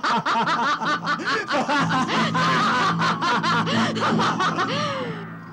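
A woman laughing in a long string of quick bursts that trails off near the end, with a low steady music drone coming in about two seconds in.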